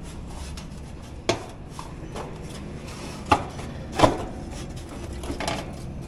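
Sheet-metal top panel and fan grille of an outdoor AC condenser unit being handled and seated on the cabinet: scraping with about four sharp metal knocks, the loudest two around three and four seconds in.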